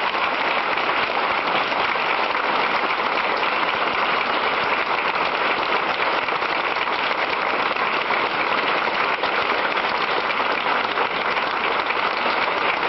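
Sustained audience applause from a large room full of people clapping, steady and dense throughout.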